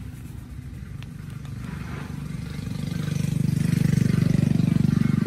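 A motor engine running with a low, pulsing hum that grows steadily louder from about two seconds in, as it draws closer.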